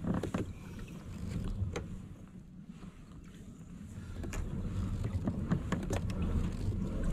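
Irregular clicks and knocks of rod and gear being handled aboard a plastic sit-on-top kayak, over a steady low rumble.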